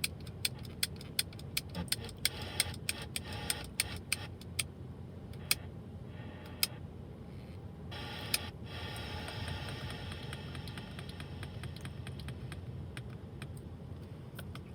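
Turn-signal indicator ticking inside a Holden Commodore VF cabin, a quick regular clicking that thins out about halfway through, over the low hum of the idling engine.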